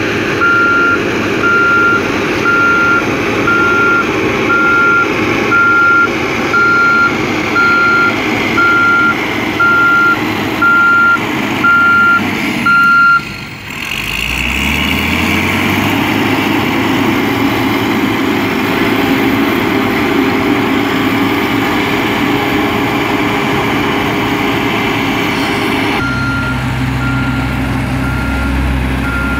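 A construction machine's reversing alarm beeping steadily, about one beep a second, over its running engine. The beeping stops about halfway through as an engine note rises and carries on, and starts again near the end over a steady engine hum.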